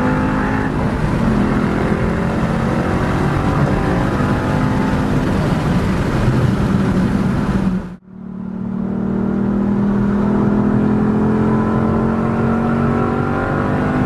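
Ford Mustang Boss 302's 5.0 V8 running through its stock exhaust. After a sudden break about eight seconds in, the engine note comes back as a steady drone that slowly rises in pitch as the revs climb.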